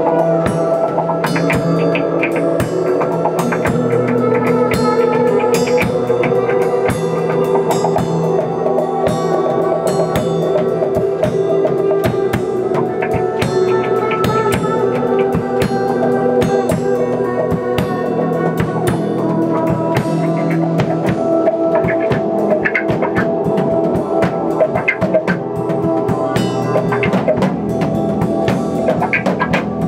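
Improvised instrumental band jam: a drum kit playing dense beats over sustained, droning tones from electric guitar, bass and synthesizers.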